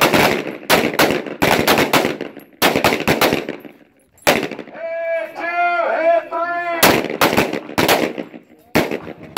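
Handgun shots fired in quick pairs and short strings, with a pause of about two seconds midway before the shooting resumes.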